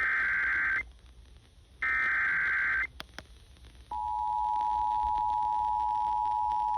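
Emergency Alert System SAME header for a severe thunderstorm warning: raspy digital data bursts about a second long, a second apart. A couple of clicks follow, and about four seconds in the steady two-tone EAS attention signal starts.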